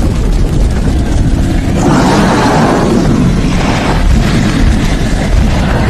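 Loud cinematic fire-and-explosion sound effects: a dense, continuous rumble that swells about two seconds in.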